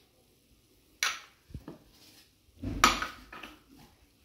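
Wooden spatula knocking and scraping against a non-stick wok while stirring spices into a chicken and vegetable filling: two sharp strokes, about a second in and just before three seconds, the second louder, with a few light clicks between.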